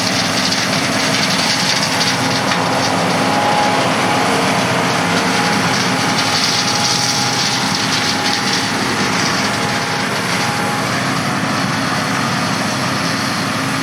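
Large diesel farm machinery running steadily, with a faint whine for several seconds in the middle.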